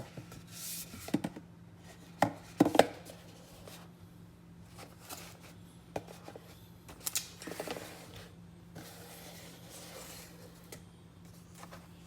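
Cardboard box and packaging of a gaming mouse being handled and opened: scattered knocks and taps, the loudest a little past two seconds in, with stretches of sliding and rustling, over a faint steady hum.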